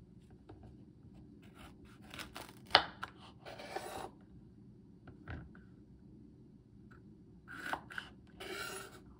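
Kitchen knife cutting baby capsicums on a bamboo cutting board: sharp knocks of the blade hitting the board, the loudest about three seconds in, and short rasping strokes as it cuts through the crisp pepper, once around four seconds in and again near the end.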